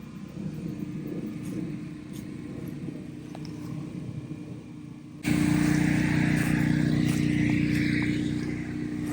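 Portable generator engine running steadily with a low, even hum, becoming abruptly louder about five seconds in.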